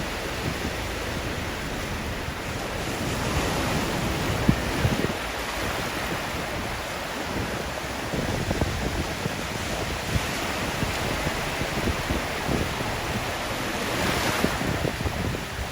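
Surf washing onto a shallow sandy beach, a steady wash that swells and eases, with wind buffeting the microphone.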